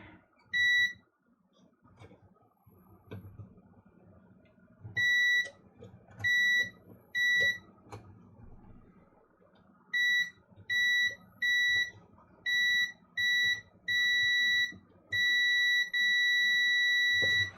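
Digital multimeter in continuity mode beeping as the probes close a circuit across a coffee grinder's freshly cleaned push-switch contacts. There are a dozen or so short, high beeps, then one steady, unbroken tone near the end, showing solid continuity.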